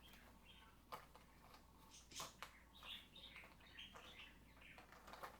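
Faint scattered clicks and small squeaks of M8 screws being put in by hand, fixing a gaming chair's tilt mechanism to the seat bottom. The squeaks cluster about three to four seconds in.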